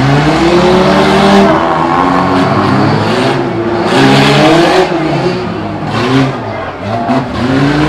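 Several small demolition-derby car engines revving hard, their pitch rising and falling as they overlap, with short noisy rushes around the middle and near the end.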